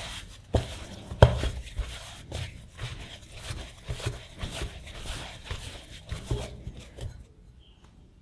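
A hand kneading a shaggy flour-and-water yeast dough in a glass bowl: repeated soft squishing presses, about two a second, with two sharper knocks in the first second and a half. The kneading stops about seven seconds in.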